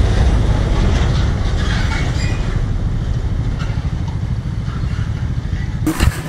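Motorbike riding in traffic: wind rushing and buffeting on the microphone over engine and road noise. It cuts off about six seconds in.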